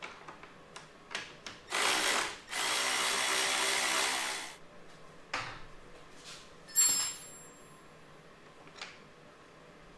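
Power drill running in two bursts, a short one about two seconds in and a steadier one of about two seconds right after, spinning off a fastener. About seven seconds in comes a sharp metallic clink with a high ringing tail.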